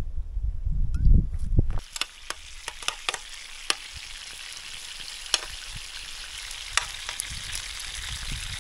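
Wind buffeting the microphone, then from about two seconds in food frying in a pan: a steady sizzle with scattered sharp pops and crackles.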